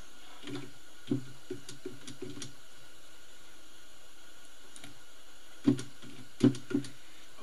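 Computer keyboard keystrokes: a quick run of about half a dozen light taps in the first couple of seconds, then three louder strokes near the end, over a steady background hiss.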